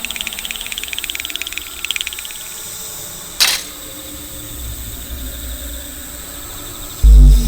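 Sound effects: fast chirping ticks that fade out over the first couple of seconds, a single sharp click about three and a half seconds in, then a low rumble and a loud, deep boom near the end.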